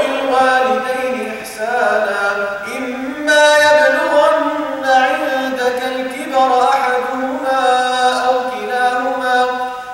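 A man's unaccompanied voice chanting a Quran recitation, holding long notes that slide from pitch to pitch, with brief breath pauses between phrases.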